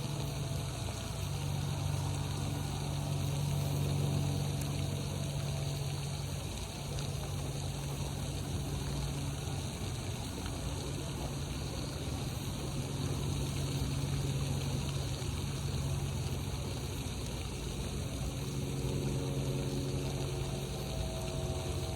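Pond fountain running: a steady low pump hum under the hiss of splashing water.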